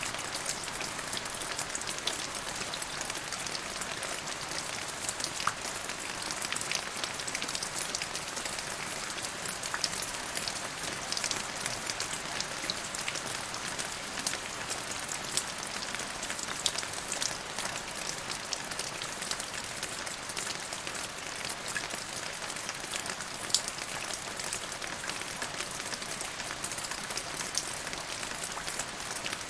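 Steady rain falling, a constant hiss dotted with many sharp taps of single drops striking close by.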